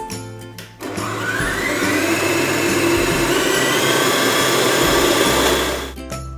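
Kenwood stand mixer beating butter and vegetable shortening at speed 3 to 4: the motor starts about a second in with a rising whine as it comes up to speed, runs steadily, then cuts off near the end.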